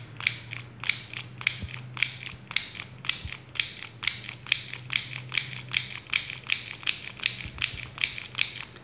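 AMI mini handheld stapler-style sewing machine being pressed down and released over and over, stitching cloth, one stitch per press. Its mechanism makes a sharp click with each stroke, in an even run of about two to three clicks a second.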